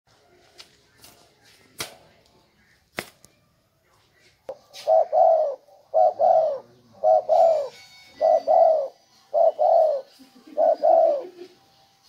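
Caged spotted dove cooing: a run of paired coo notes, about one pair a second, beginning about four and a half seconds in. Two sharp clicks come before it.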